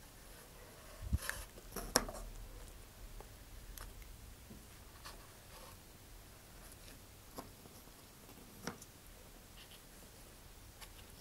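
Quiet handling noises from a cardboard rocket body tube and gloved hands: scattered light taps and rubbing. A low thump comes about a second in and a sharper click at about two seconds, with another tap near nine seconds.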